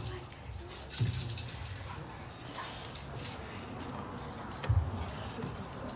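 Light metallic jingling of small bells, with soft thumps about a second in and again near five seconds.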